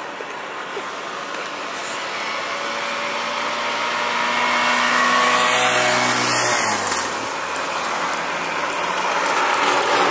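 Road traffic going by: a lorry's engine passes close, its pitch dropping as it goes past about six or seven seconds in, over a steady hiss of tyres on the road. Another vehicle's noise builds near the end.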